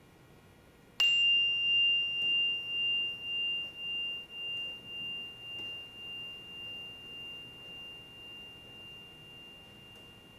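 A single strike on a bell-like object, about a second in, leaving one clear high tone ringing out for several seconds, pulsing steadily as it slowly fades.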